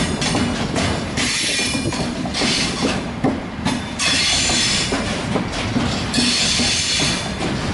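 A train rolling past with a steady clatter of wheels over rail joints. Its wheels squeal in four high-pitched bursts of about a second each.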